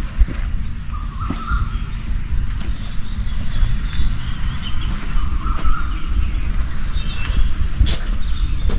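A steady, high-pitched chorus of insects, with a low rumble under it and a few faint short chirps.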